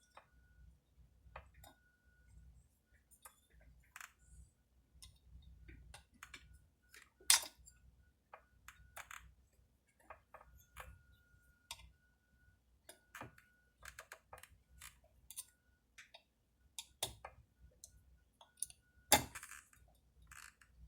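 Scattered small clicks and taps of metal parts as a chainsaw cylinder is worked down over the piston and its rings, with one sharper click about seven seconds in and another near the end.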